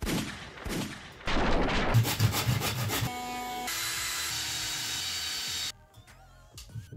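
A cordless drill spins up with a short whine and then drills steadily into a wooden strip for about two seconds, stopping suddenly. Before it comes a louder stretch of mixed knocking and rustling noise.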